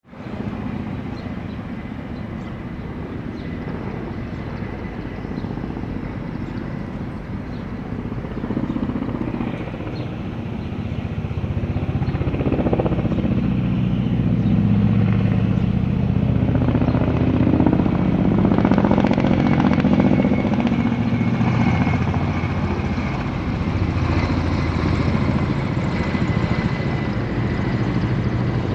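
Kamov coaxial-rotor helicopter flying past with a water bucket slung under it: a low rotor thrum with a thin steady engine whine above it. It gets louder about halfway through as the helicopter comes nearer.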